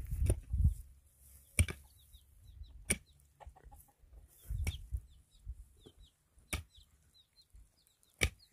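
Domestic chickens clucking, with faint, frequent high peeps from chicks. A few sharp clicks are scattered through it, and there is low rumbling near the start and around the middle.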